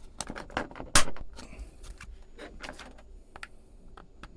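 Plastic clicks and knocks from a 3D-printed RJ45 port housing clipped into a dash switch panel as it is pulled hard; it stays clipped in. The loudest is a sharp knock about a second in.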